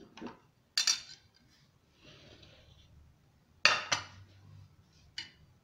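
A metal fork and a wooden spoon clinking and scraping on a ceramic plate while shredding cooked chicken: a few sharp clinks, the loudest about two-thirds of the way through, with a soft scrape between them.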